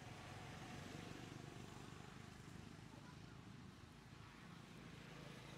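Faint, steady outdoor background noise with a low rumble and no distinct events.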